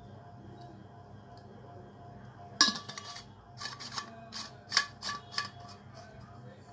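Copper water bottle and its copper cap clinking and tapping as they are handled: one sharp ringing clink about two and a half seconds in, then a quick run of lighter metal taps over the next two seconds, over a faint steady hum.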